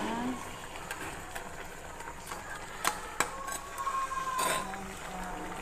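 A metal spatula scrapes and knocks against a metal pot while stirring crabs and cabbage in broth. A few sharp clicks come about three seconds in.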